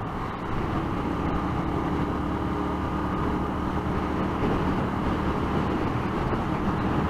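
Motorcycle engine running at a steady cruise, with wind rushing over a helmet-mounted microphone.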